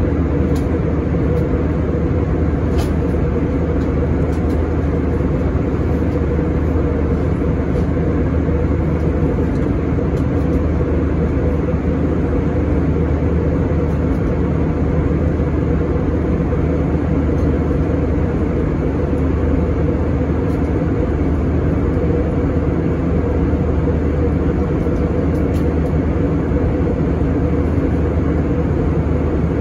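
Steady in-cabin noise of an Airbus A321 cruising: the constant drone of its jet engines and the rush of airflow past the fuselage, with a low hum and a steady mid-pitched tone running under the rush.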